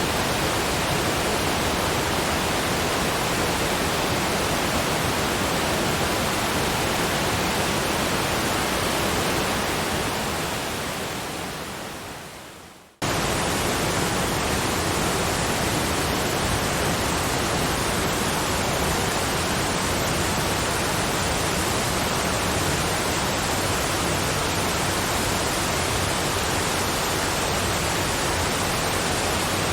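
Steady rushing of a waterfall. About ten seconds in it fades away to near silence, then cuts back in abruptly at full level about three seconds later, where the recording restarts.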